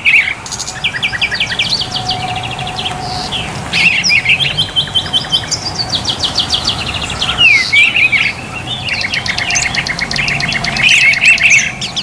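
Several songbirds singing at once: fast trills, rapid runs of repeated notes and sharp chirps overlapping, with one very high trill strongest near the end.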